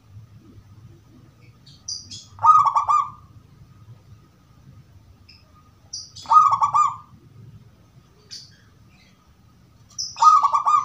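Perkutut (zebra dove) of the gedong mengo type singing three cooing phrases about four seconds apart, each a short high note followed by a quick run of low coos, in the clear voice its keepers call 'crystal'.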